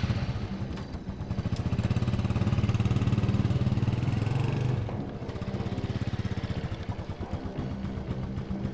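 Small underbone motorcycle engine pulling away under throttle. It is loudest for the first few seconds, drops off suddenly about five seconds in, and then runs on more quietly.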